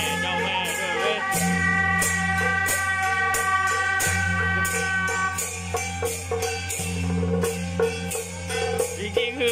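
Music with a steady beat: sustained bass and held melody notes over regular cymbal-like ticks, with a wavering sung line near the start.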